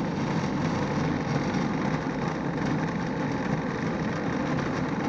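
Food processor motor running steadily as it kneads brioche dough.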